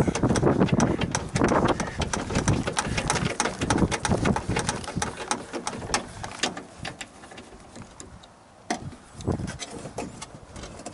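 Rapid clicking and metallic rattling of hand tools on the window regulator bolts inside a car door, with handling rumble. The clicks are dense for about the first half, then become sparser and quieter.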